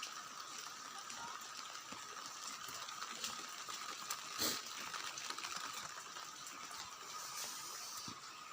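Heavy rain falling steadily, with scattered ticks of drops striking and one louder knock about four seconds in, over a faint steady high tone.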